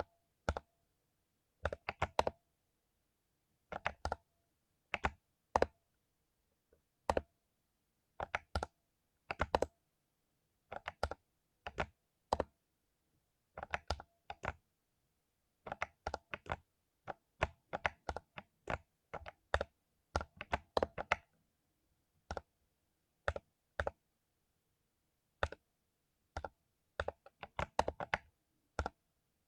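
Mechanical keyboard with lubed Cherry MX Silver linear switches being typed on, in irregular bursts of a few quick keystrokes with short pauses between them.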